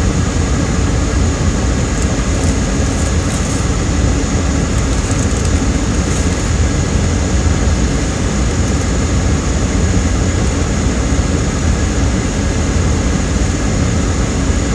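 Steady hum of a car idling with its air-conditioning running, heard from inside the cabin.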